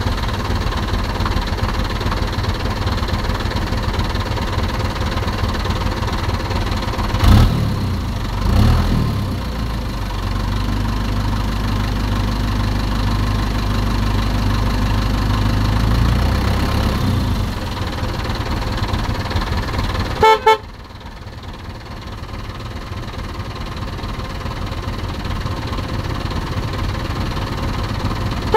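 Remote-control toy dump truck: a steady low electric-motor hum with two louder bumps about a quarter of the way in, then two short horn toots about two-thirds of the way through, after which it goes quieter.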